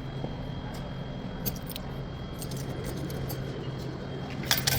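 Interior of a running PATH rapid-transit train car: a steady low hum with a faint high whine, a couple of sharp clicks about a second and a half in, and a flurry of metallic clinks and rattles near the end.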